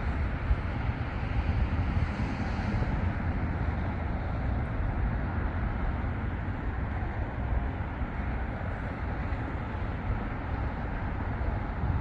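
Steady outdoor rumble with wind buffeting the microphone.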